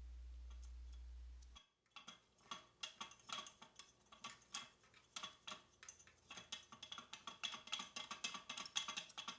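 Faint, irregular metallic clicks and clinks of a telescoping patio door security bar being extended and a carriage bolt being fitted into its threaded slot. The clicks start about two seconds in and come quicker toward the end.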